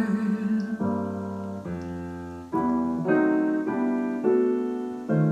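Piano accompaniment playing a short instrumental fill between sung lines: a run of held chords, each changing about once a second and fading before the next.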